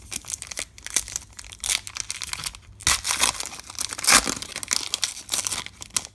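Foil wrapper of a Topps Chrome Star Wars trading-card pack being torn open by hand and crinkled, an irregular run of crackles with the loudest crinkles about three and four seconds in.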